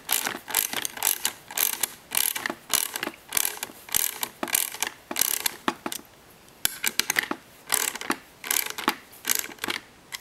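9/16-inch wrench working the nut on a Hobie Mirage Drive pedal-arm bolt, clicking in repeated back-and-forth strokes about twice a second, with a short pause about six seconds in.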